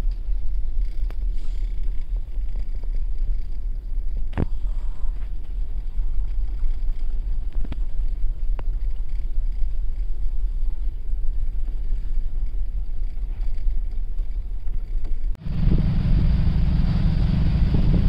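Low, muffled rumble heard from behind a closed cabin window on a ship at sea, with a few faint clicks. About fifteen seconds in it changes abruptly to wind buffeting the microphone and rough sea rushing past on the open deck.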